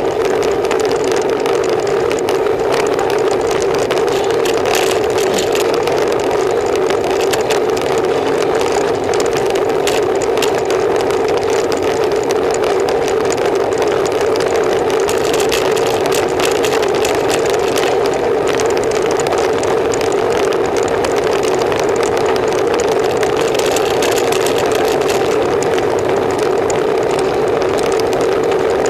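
Steady wind and road noise on a camera riding along on a road bike climbing a paved road: a constant, unbroken drone with no letup.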